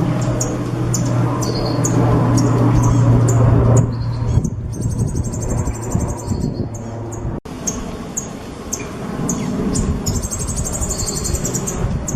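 A songbird singing: repeated short, sharp, high chirps with two fast rapid-fire trills, over steady background noise and a low hum that stops about four seconds in.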